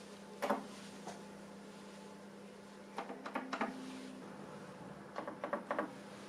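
Keys of a Canon Canola 130S transistor-logic calculator clacking as a number is typed in, in short groups of several presses, over a steady low hum.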